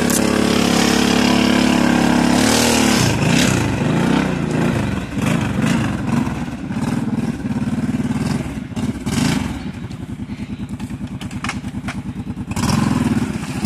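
ATV engine revving up and down as the quad churns through mud and water, with scattered knocks and clatter. About ten seconds in it drops to a steady, even idle, then revs up again near the end.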